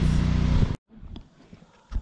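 A vehicle engine idling steadily, cutting off suddenly under a second in. After that only a few faint knocks.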